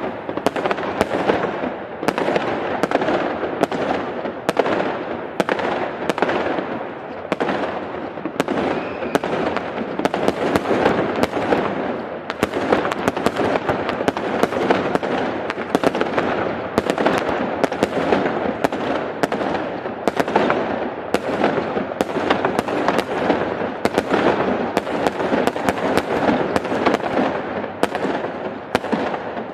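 Big fireworks display: a continuous barrage of shell bursts, one or two bangs a second, over a steady crackling haze.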